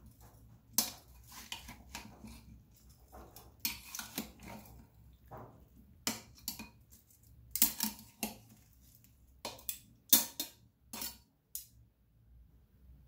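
Metal kitchen tongs tossing chunks of fruit in a ceramic pot, giving irregular sharp clinks against the pot. The clinks stop shortly before the end.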